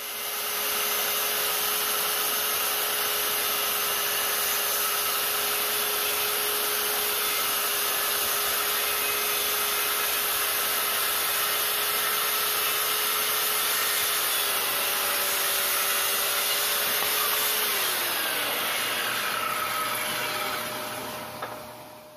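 Circular saw running under load, its blade cutting through a wooden board at a bevel. Steady motor and blade noise throughout; about 18 seconds in the motor's pitch drops a little, and the sound fades out near the end.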